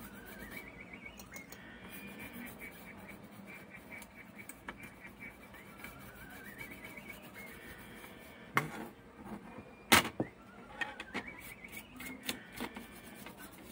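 Toothbrush bristles scrubbing the bare circuit board of a graphics card in quick, soft strokes, with a sharp knock about ten seconds in and a smaller one just before it.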